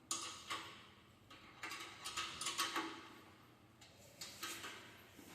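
A spanner tightening a bolt on a metal scale frame: a series of short metallic clicks and clinks in loose clusters, some with a brief ring.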